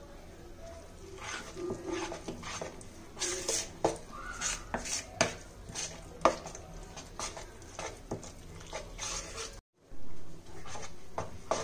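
Flour-and-spice batter being stirred in a bowl, with irregular clinks and scrapes of the utensil against the bowl.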